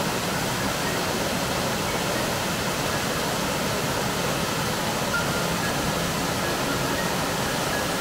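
Waterfall rushing in a steady, even hiss across all pitches.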